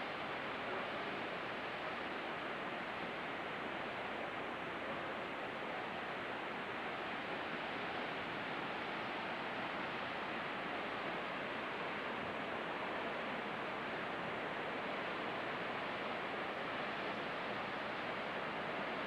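Steady rushing of floodwater, an even roar of water that does not change.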